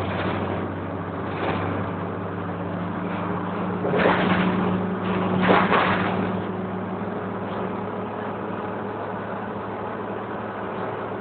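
Dennis Dart bus underway, heard from inside, with a steady low drone and whine from the rear differential, a diff noise that persists even off the accelerator and before braking. Two brief louder rattles come about four and five and a half seconds in.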